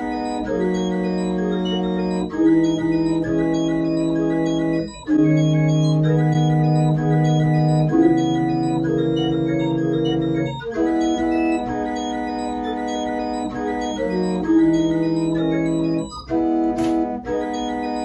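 Practice pipe organ playing slow, sustained chords. The notes are held and change every few seconds, with short breaks between phrases.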